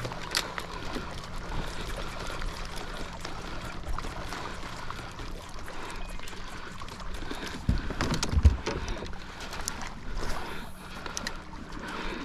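Water lapping and trickling against a kayak hull, with scattered small clicks and a cluster of dull knocks about eight seconds in.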